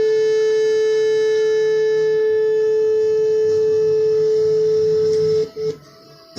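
A musical instrument holding one steady ringing tone with fainter overtones above it, stopped abruptly about five and a half seconds in.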